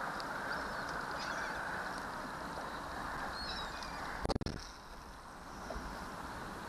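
Birds feeding over the water give faint, short, high calls twice, over a steady rushing background. A loud bump about four seconds in.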